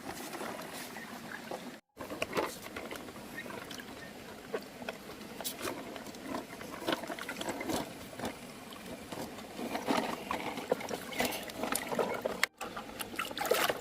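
Water splashing and sloshing as plastic toy cars are washed, with scattered light knocks and clatter of the toys.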